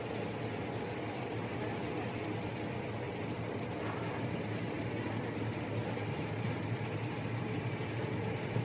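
Cabin noise inside an electric Cercanías commuter train under way: a steady low rumble of the moving train.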